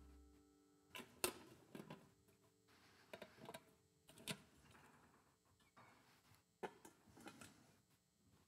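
Near silence: room tone with the last of a held chord dying away at the start, then scattered faint clicks and knocks, a dozen or so, spread irregularly.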